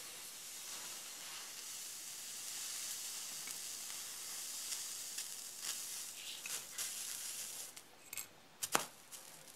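Muriatic-acid flux sizzling under a hot 200-watt soldering iron tip on a galvanized sheet-steel joint, a steady high hiss as the joint is heated to soldering temperature. The sizzle fades near the end, followed by a few light clicks.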